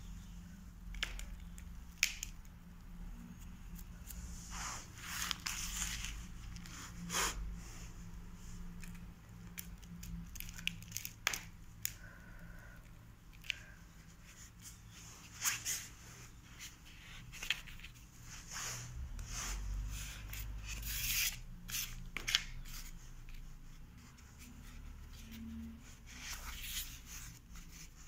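Hands scooping and patting potting compost into a plastic pot: irregular soft rustling and crumbly scraping of the soil, with a few sharper clicks scattered through.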